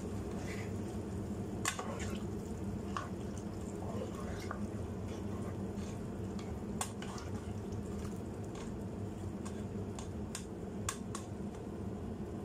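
A black kitchen spoon stirring pasta, sausage and milk in a non-stick pot, with a few sharp clicks of the spoon against the pot, over a steady low hum.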